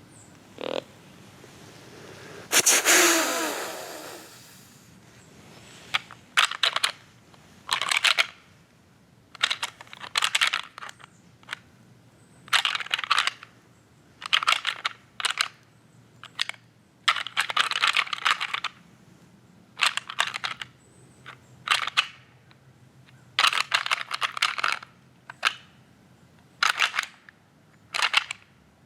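Irregular crunching steps through dry leaves, each step short and separate, about one every second or two. About three seconds in, a longer, louder rustling crash with a falling tone comes before the steps.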